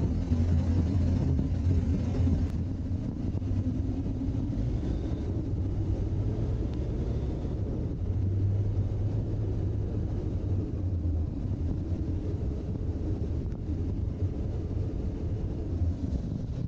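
BMW R1200GS boxer-twin motorcycle engine running at a steady cruising speed, a low hum under a haze of wind and road noise, heard from on the moving bike.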